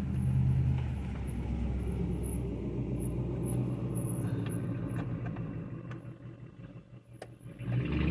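A steady low engine-like rumble that fades away about six seconds in and comes back near the end, with a few faint clicks.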